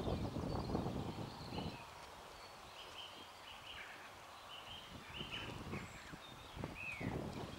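Small birds chirping in a run of short, quick calls through the middle, over a low rumbling noise that is loudest for the first second and a half and comes back near the end.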